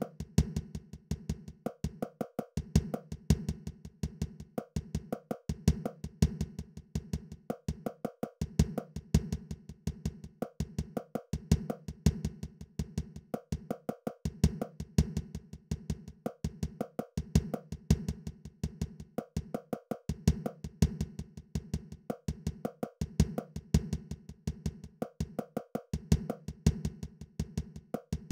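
Background music built on a looping percussion beat of quick wood-block-like clicks over a steady low bass, repeating every couple of seconds.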